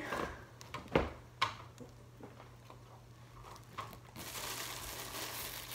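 Used paper hamster bedding being scooped out of a plastic cage and dropped into a plastic grocery bag: a few soft knocks against the cage, then a steady rustling and crinkling from about four seconds in.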